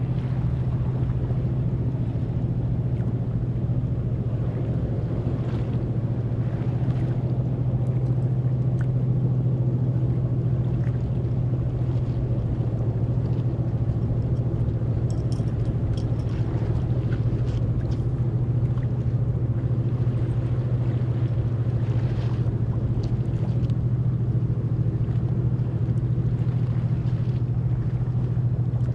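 A high-speed catamaran ferry under way, its engines running as a steady low drone over a constant rush of noise.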